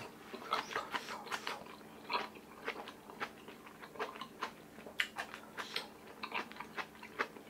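Close-miked chewing of a mouthful of rice and kimchi stew: irregular small clicks and smacks of the mouth, several a second.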